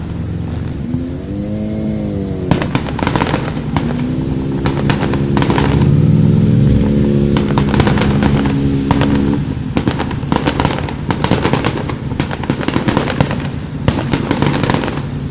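Fireworks going off: a rapid series of sharp bangs and crackling pops in dense clusters. A short wavering pitched tone sounds about a second in, and a long steady pitched tone, like a horn, runs from about four to nine seconds in.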